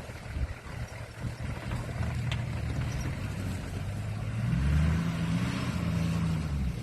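A 4WD vehicle's engine running, rising in pitch about four seconds in and holding higher and louder as it accelerates.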